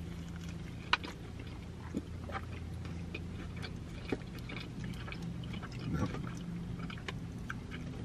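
Chewing and wet mouth sounds of a person eating a large bacon burger, with a few small sharp clicks and a brief murmur about six seconds in, over a steady low hum inside a car.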